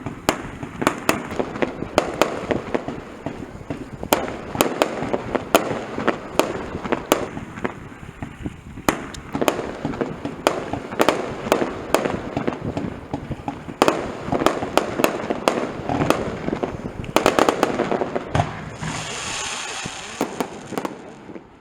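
Fireworks display with aerial shells bursting in quick succession, sharp bangs several a second. About seventeen seconds in comes a tight cluster of rapid reports, followed by a couple of seconds of crackling hiss.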